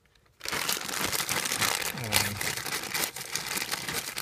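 Loud, close crinkling and rustling of something being handled, starting abruptly about half a second in and going on without a break.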